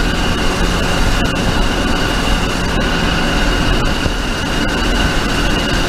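Inside the cab of an old one-ton pickup truck at highway speed: steady engine, road and wind noise, with a steady high whine running through it.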